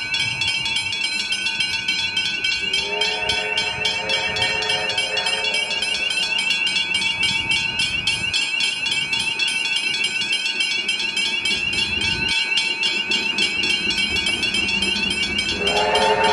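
Whistle of the Victorian Railways A2 class steam locomotive 986, several tones sounding together: a blast about three seconds in lasting about two seconds, and a louder one starting near the end. Under it a fast, steady high-pitched ringing repeats throughout, with a low rumble.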